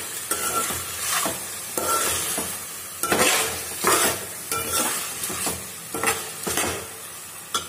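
Chicken pieces sizzling as they fry in oil in a metal pot, while a metal spoon stirs and scrapes through them in repeated strokes, about one or two a second. The chicken is well fried at this stage.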